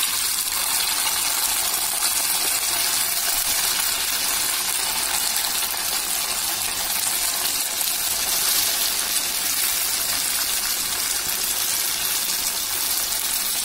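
Boiled noodles deep-frying in hot oil: a steady, even sizzle of bubbling oil.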